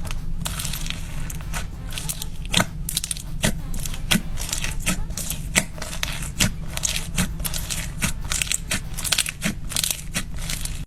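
Slime being squeezed and kneaded: sharp sticky pops and clicks, roughly one a second, over a continuous crackle, with a steady low hum underneath.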